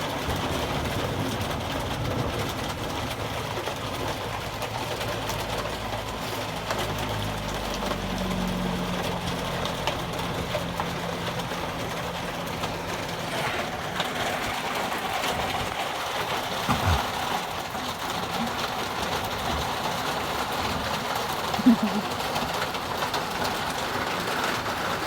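Steady heavy rain with some hail, falling without a break. A low steady hum joins in for several seconds partway through.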